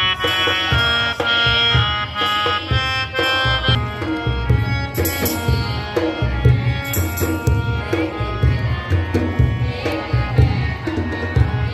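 Indian music: a sustained melody over steady, regular drum beats.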